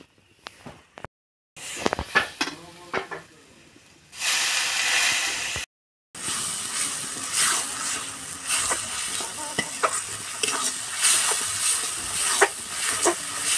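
Spiced chicken masala sizzling in an aluminium kadai while a metal spatula scrapes and stirs it against the pan, with clinks as spice is spooned in early on. A loud, even burst of sizzling lasts about a second and a half near the middle, then steady sizzling continues under frequent scraping strokes.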